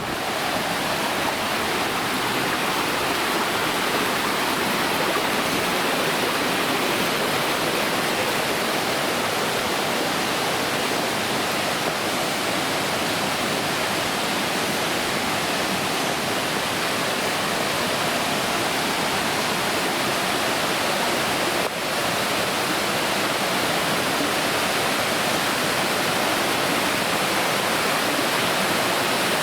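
Waterfall rushing: a steady, dense wash of falling water.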